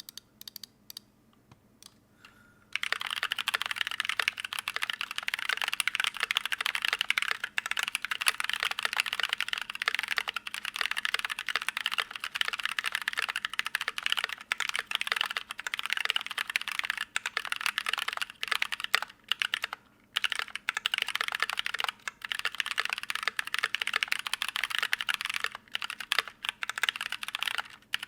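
Typing on a KBD67 MKII mechanical keyboard with stock NovelKeys Blueberry tactile switches, a brass plate and GMK keycaps. A few single keystrokes come first, then fast continuous typing from about three seconds in, with a couple of brief pauses later on.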